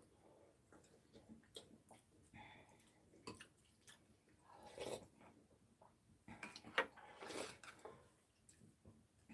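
Faint chewing of food, with scattered light clicks of a spoon and chopsticks against ceramic bowls; the loudest clicks and smacks come about five and seven seconds in.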